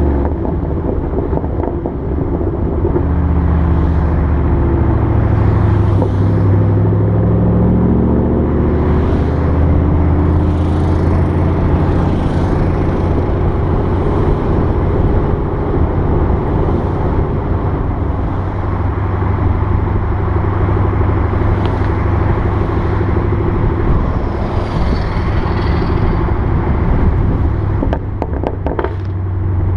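2014 Mustang GT's 5.0 L V8 running through Roush axle-back mufflers with the resonators deleted, the revs climbing and then holding under steady driving. Near the end the throttle comes off and a quick burst of sharp pops and crackles comes from the exhaust, the deceleration pops of the Ford Racing Track Cal tune.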